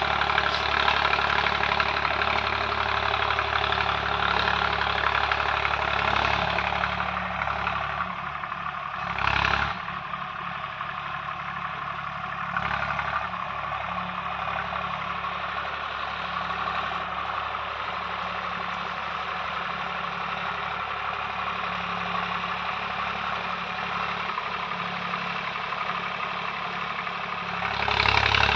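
Swaraj 744 tractor's diesel engine running steadily through an Eicher tractor's silencer. There is a brief louder burst about nine seconds in and another swell near the end.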